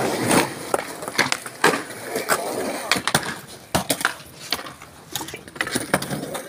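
Skateboards rolling on concrete, with a run of sharp, irregular clacks as decks and wheels strike the ground.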